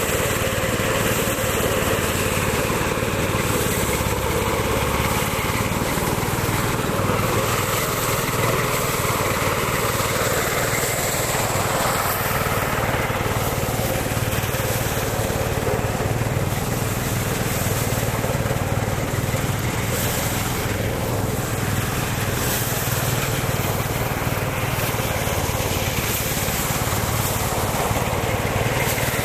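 Engine of rice-harvesting machinery running steadily at a constant speed, a low hum under a dense mechanical rush.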